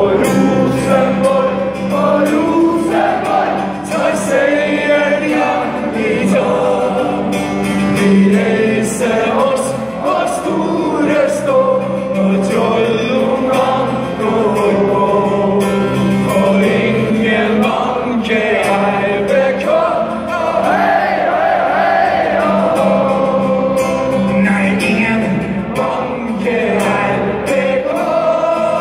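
A choir singing, a continuous sung song with a steady low note held underneath, heard across an open stadium.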